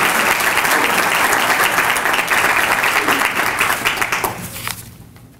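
Audience applauding, a dense run of many hands clapping that fades away over the last second or so.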